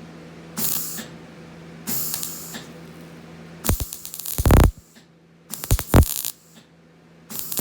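MIG welding arc crackling in five short bursts, each under a second, as a broken bandsaw blade's ends are tack-welded together with a Millermatic 200.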